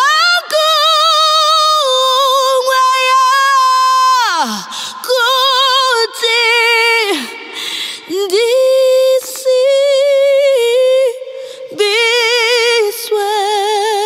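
A woman singing unaccompanied in Shona, recorded close on a Lauten Audio LA-220 FET condenser microphone: high, long-held notes with wide vibrato, sung in several phrases with short breaks between them.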